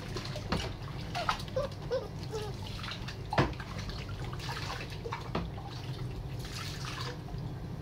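Water poured from a cup over a wet puppy in a sink, splashing and dripping, with scattered sharp splashes and knocks. Two pours are heard, a little after four seconds and again near the end, over a steady low hum.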